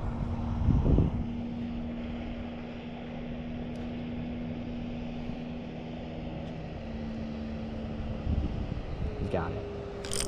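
Steady drone of a distant motor engine, its pitch stepping up about nine seconds in; a few quick mechanical clicks at the very end.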